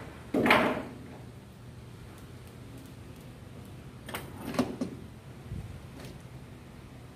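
Handling noises from small tools and connector parts at a workbench. A short scraping rattle about half a second in is the loudest sound, followed by a few light clicks around four seconds in.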